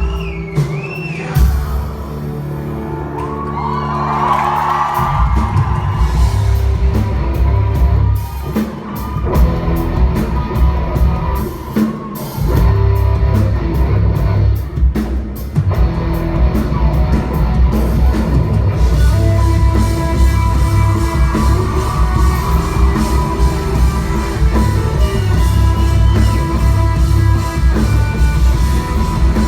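Live band playing: drums, bass and electric guitar, loud and full.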